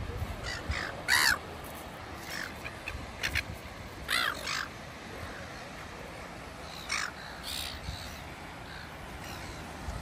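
Silver gulls calling: short calls scattered through, the loudest about a second in and around four seconds in, a few more near seven seconds.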